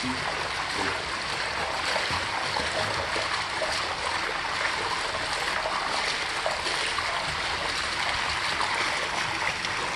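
Steady rush of water from a pool's wall spillway pouring into the pool, with light splashing in the water.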